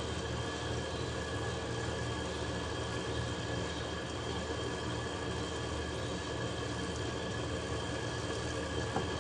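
Steady low mechanical hum of a running fan or motor, with faint high whine tones and no change in speed; one faint tick near the end.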